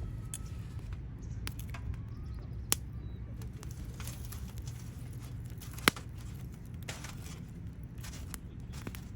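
Wood fire burning in a Picogrill-style fire stand, crackling with scattered small pops over a steady low rumble. Two sharp pops stand out, one about a third of the way in and the loudest a little past halfway.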